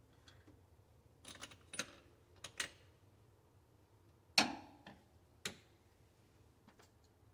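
Hand tools and metal engine parts being handled at the front of the engine, around the oil pump: a scattering of short sharp clicks and clinks, the loudest about four and a half seconds in with a brief ring.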